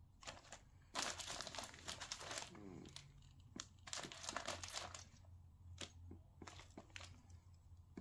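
Thin plastic bag crinkling faintly in short, irregular bouts as a cat noses and pushes its head into it, rummaging among the toys inside.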